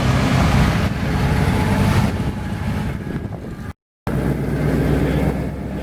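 Car engine running at low speed, a steady low-pitched sound, cut off by a brief total dropout just under four seconds in before an engine sound resumes.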